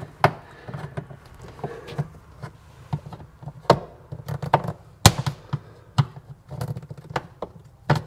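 Plastic push-pin trim clips being pried out of an Odes 1000 X2 LT side-by-side's plastic centre console with trim clip pliers: a string of sharp clicks and snaps, the louder ones coming about a second apart in the second half.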